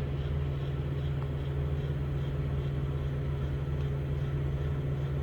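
Microwave oven running: a steady low hum.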